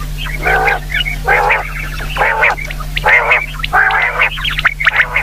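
Common quail calling: five short calls about a second apart, then a quick run of short high notes near the end.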